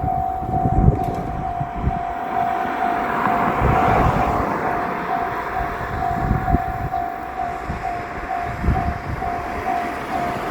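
Japanese railroad crossing alarm bell ringing its clanging 'kan-kan' warning in a steady, rapid, even rhythm, over the low rumble of a diesel railcar train passing over the crossing.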